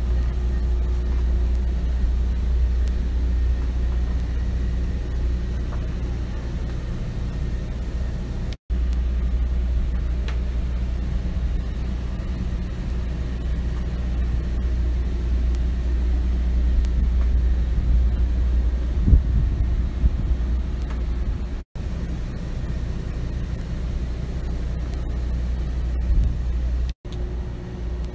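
A steady low machine rumble with a faint hum, cut off by three brief dropouts. A few light knocks come about two-thirds of the way in.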